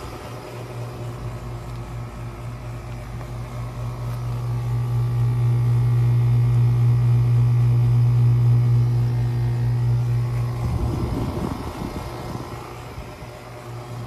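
Payne central air-conditioner condensing unit running, with a steady compressor hum under the rush of the outdoor fan. The hum swells louder for several seconds through the middle, and there is a brief rough rustle about three-quarters of the way through.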